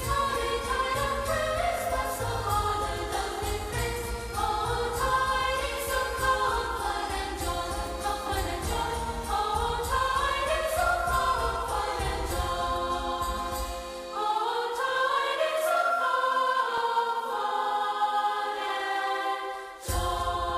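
Music with choir-like singing over chiming bells. The low bass drops out about two-thirds of the way through, and there is a brief break near the end.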